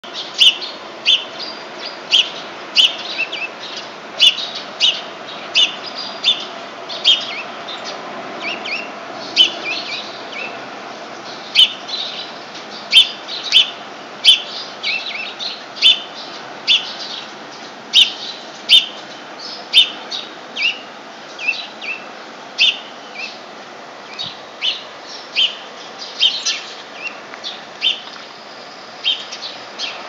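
Small songbirds chirping: short, sharp chirps repeated about one or two a second, over a steady low background noise.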